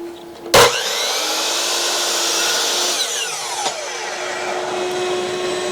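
Miter saw switched on about half a second in and cutting through a maple board. About three seconds in it is released and the blade spins down with a falling whine, while a steady rushing noise runs on.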